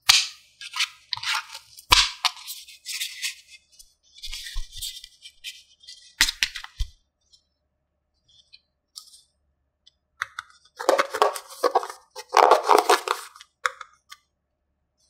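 Small plastic toy pieces and packaging being handled: a string of sharp clicks, taps and crinkles. A denser run of rattling and clattering comes about eleven to thirteen seconds in.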